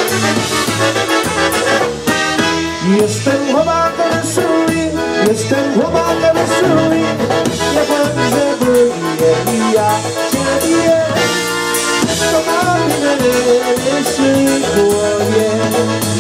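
Live polka band music: two trumpets playing together over accordion and a steady oom-pah bass, then from about two seconds in a man sings into a microphone over the band.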